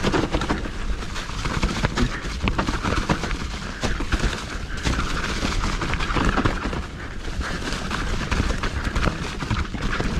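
Mountain bike riding down a rough dirt trail: tyres rolling over the ground with a steady low rumble, and many sharp clattering knocks as the bike and its chain rattle over bumps.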